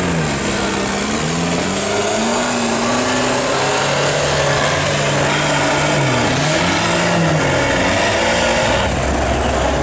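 Off-road 4x4 engine revving under load in deep mud, its pitch dropping and climbing again several times.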